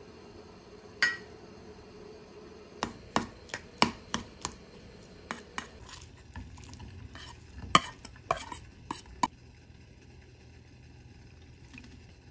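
A cooking utensil clicking against cookware as food is stirred. There is one knock about a second in, then an irregular run of sharp clicks, roughly two a second, that stops about nine seconds in.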